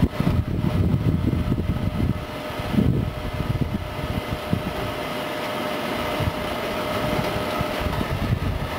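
Peanut frying machine running: a steady mechanical hum from its electric motor and worm gearbox, with a thin steady whine that fades out near the end.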